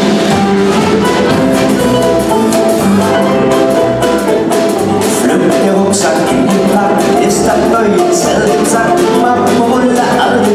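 Live band music with drums and percussion, and men's voices singing into microphones.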